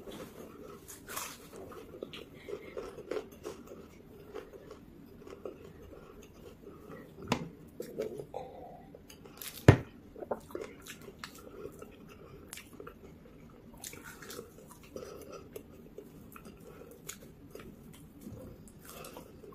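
Close-up chewing and biting of a fried samosa, with small crunches and clicks of the pastry in the mouth. A single sharp knock about halfway through is the loudest sound, with a smaller one shortly before it.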